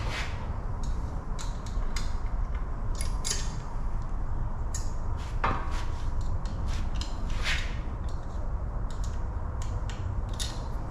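Scattered metal clicks, taps and scrapes from an Allen key working the Allen head screws on a bench grinder's fittings, over a steady low rumble.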